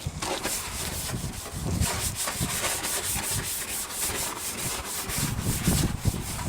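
A brush scrubbing a wet plastic car headlight lens with cleaner, in quick, even back-and-forth strokes, to wash off the grime before sanding.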